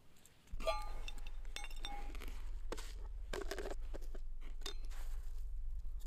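A run of light clinks and clatter of small hard objects, the first few ringing briefly, over a steady low rumble that starts about half a second in.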